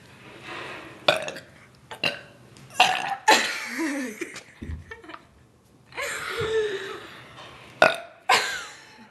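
A run of human burps in a burping contest: several short, abrupt ones and two longer, drawn-out ones with a wavering pitch, the second starting about six seconds in.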